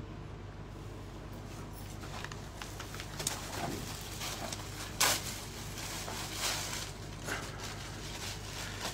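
Cloth rustling and being handled as a folded suit is opened out on a counter, in short scuffs from about three seconds in, the loudest about five seconds in. A steady low hum lies under it.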